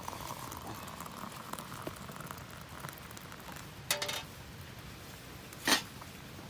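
Faint steady crackling, with a short ringing metallic clink about four seconds in and a louder sharp knock near the end.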